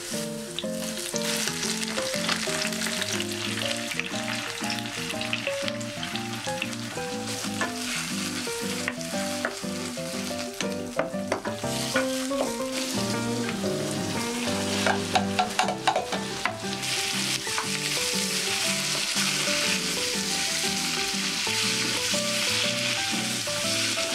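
Thin-sliced beef brisket and then chopped vegetables sizzling in hot chili oil in a wok, with the clicks and scrapes of a wooden spatula stirring. The sizzling grows louder about two-thirds of the way in. Light background music plays under it.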